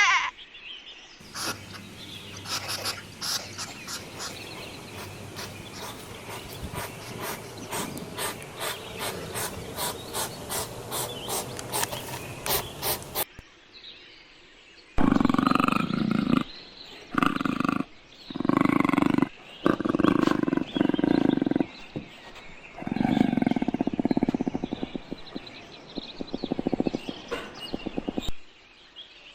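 Wild animal calls: a run of evenly spaced pulses that speed up over about twelve seconds and stop suddenly, then, after a short pause, a series of loud roars about a second long each.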